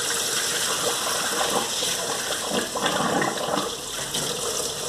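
Water from a garden hose gushing and splashing, rinsing dirty radiator water off a car's engine bay; a steady spray with uneven surges.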